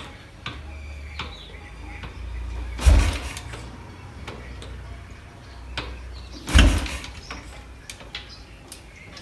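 Royal Enfield Bullet Electra's 350 cc single-cylinder engine being kick-started: two hard kicks, about three and a half seconds apart, each turning the engine over with a short low rumble that fades away without the engine catching.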